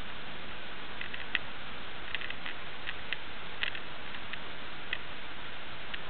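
Steady hiss of a low-quality camera microphone, with faint sharp clicks at irregular intervals, roughly one to three a second.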